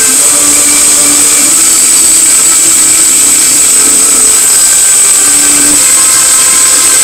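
Loud, steady, harsh hissing noise, with faint tones shifting underneath it.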